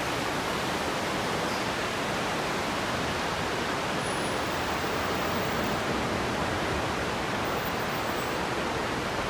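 Rainwater runoff pouring down and rushing through a flooded parking lot, a steady, even rush of water.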